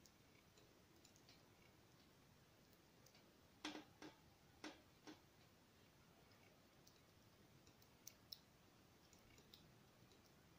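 Mostly near silence, with a few faint clicks and scrapes from a metal palette knife working oil paint on paper: about four close together partway through and two more later.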